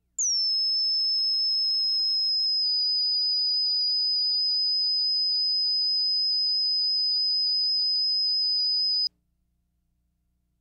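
Steady high-pitched reference test tone of a videotape's bars-and-tone leader. It starts with a brief downward slide, holds one pitch for about nine seconds, and cuts off suddenly.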